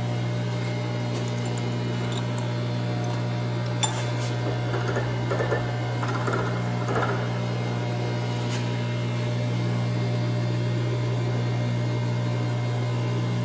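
Milling machine running steadily with a hum while an extended drill bit bores through 1/2-inch steel plate, with a few light clicks and scraping sounds from the cut.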